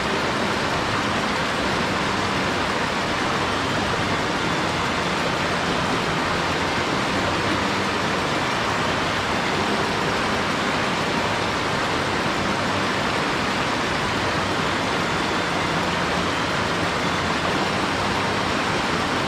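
Mountain headwater stream rushing over rocks and small rapids: a steady, unbroken rush of water.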